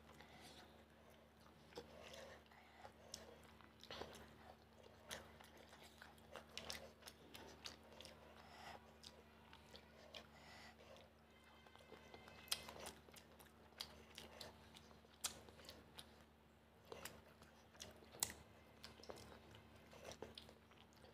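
Close-miked chewing of fish curry and rice: soft wet mouth sounds with scattered sharp smacks and clicks.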